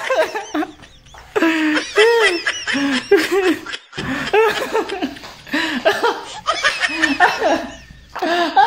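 A man laughing hard in three long bouts, with short breaks between them, his voice rising and falling in pitch.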